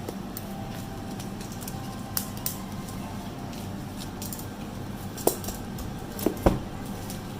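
A handful of separate sharp clicks and taps from a keyboard and its packaging being handled, over a steady low hum. The clicks come in pairs: two close together a couple of seconds in, then a single one and two more near the end.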